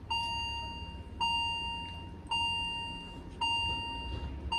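A bell dinging one note about once a second, five strikes, each ring fading away before the next.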